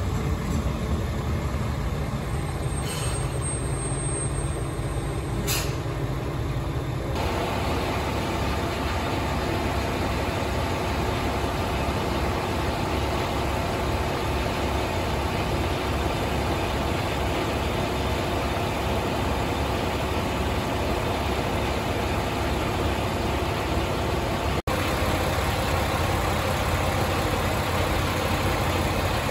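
Diesel railcar idling at a station platform: a steady engine hum, with two brief hisses a few seconds in. The sound grows fuller about seven seconds in.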